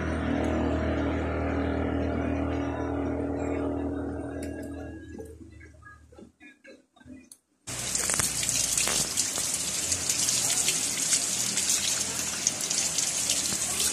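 Tap water gushing and splashing over a handful of leaves being rinsed, starting suddenly about eight seconds in. Before it, a steady pitched sound fades away over the first six seconds, followed by a brief near silence with a few soft clicks.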